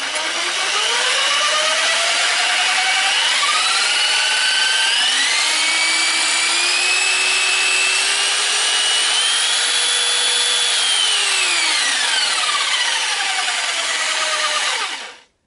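Parkside PSTD 800 B2 800-watt corded jigsaw running free with no workpiece. Its motor whine climbs in pitch in several steps as the speed setting is raised from one up to six. It then glides back down over a few seconds and stops shortly before the end.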